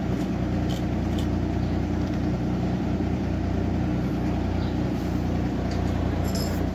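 Steady low machine hum running at an even level, with a few faint clicks.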